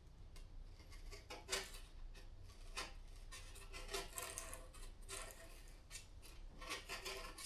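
A knife scraping and carving by hand in short, irregular strokes, standing in for a drill bit the job calls for.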